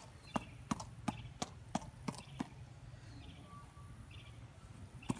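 Headband boxing reflex ball being punched: about seven quick, evenly spaced hits, roughly three a second, which stop after two and a half seconds, with one more hit near the end.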